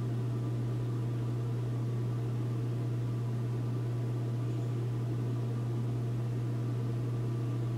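Steady low hum with a faint hiss under it, unchanging throughout: constant background noise, with no other sound standing out.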